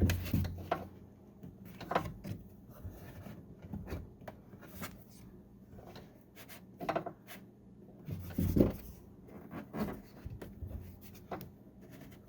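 A window channel inside a Ford Fiesta door being worked up into its bracket by hand: irregular rubbing and scraping with scattered clicks and a few louder knocks, the loudest about two seconds in and about two-thirds of the way through.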